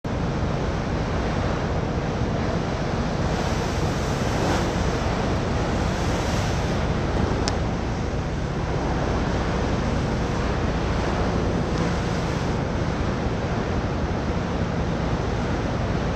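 Steady rush of wind on the microphone and water noise from a boat moving at sea, with a low engine drone underneath.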